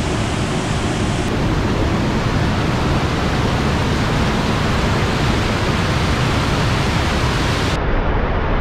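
Large waterfall pouring over a rock ledge into a churning pool: a loud, steady rush of falling water.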